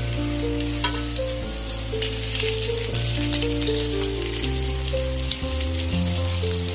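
Rava-semiya cutlets shallow-frying in oil on a tava, a steady crackling sizzle, while they are turned over with a wooden spatula. Background music of held low notes that change pitch every half second or so runs underneath.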